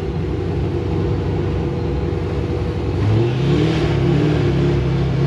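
Supercharged V8 of a Pontiac GTO running on the move. The engine note is steady at first, then rises about three seconds in as it accelerates.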